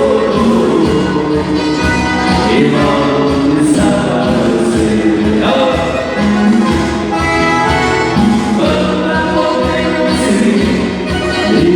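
Music with singing: a song with voices over instrumental accompaniment, playing steadily.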